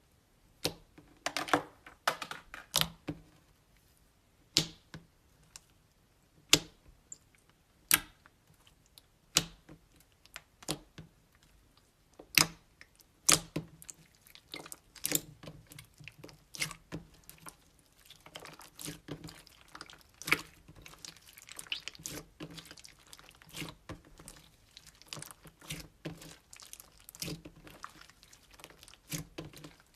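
Slime being squeezed and stretched by hand close to the microphone, giving irregular sharp pops and clicks that thicken into steady crackling in the second half.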